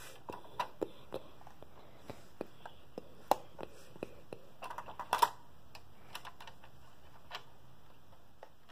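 Light, irregular plastic clicks and taps as fingers handle pieces of a Lego model, with a small cluster of louder clicks about five seconds in.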